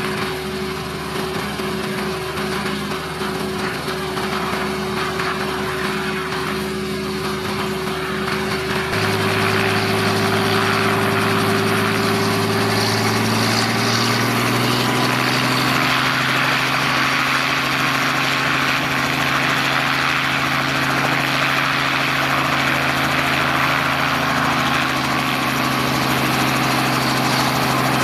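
Robinson R44 helicopter running on the ground with its main rotor turning: a steady engine and rotor drone. About nine seconds in it gets louder and its pitch steps up, and it rises again a few seconds later, as the rotor is run up toward takeoff speed.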